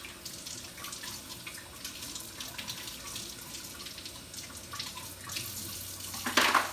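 Kitchen tap running into a stainless steel sink while small fermenter spigot parts are rinsed under the stream, with small splashes and knocks. A brief, louder noise comes near the end.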